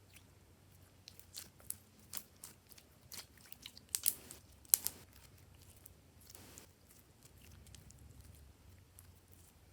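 Slime being squished and kneaded by hand, making a run of sharp wet clicks and pops, loudest a little past the middle, then a brief soft squelch.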